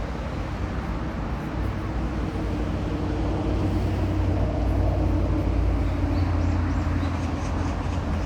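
Low, steady rumble of road traffic that swells a little midway through, with a few faint high chirps near the end.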